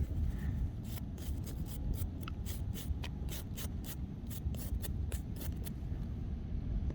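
Quick scratching and rubbing strokes, about three or four a second: soil being rubbed off a freshly dug-up metal buckle. A steady low rumble runs underneath.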